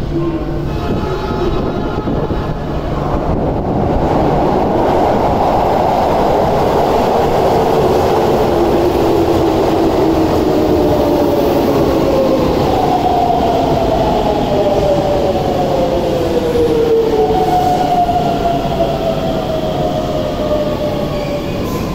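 A Keisei 3700 series electric train pulls into an underground station with a loud, steady running rumble of wheels on rail. In the second half its VVVF inverter-driven traction motors whine in several tones that fall in pitch together as the train brakes and slows.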